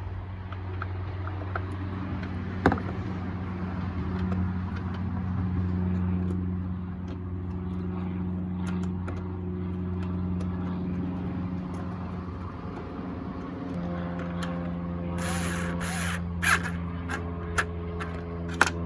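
A steady low motor drone runs throughout, with the hand-tool clicks and clinks of a hood latch being taken apart: one sharp click about three seconds in and a run of louder clicks near the end.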